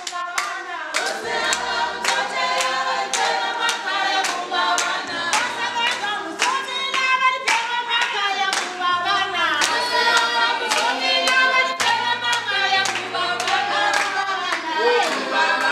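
A group of people singing together unaccompanied, with steady rhythmic hand-clapping about twice a second.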